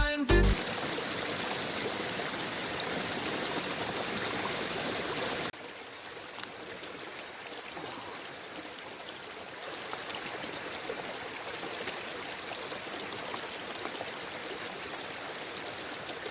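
Babbling brook and waterfall running steadily, an even rush of water; the sound drops suddenly in level about five seconds in.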